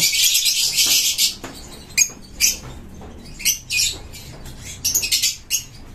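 Lovebirds giving shrill, high chirps: a dense chattering burst for about the first second, then short separate chirps every half second to a second.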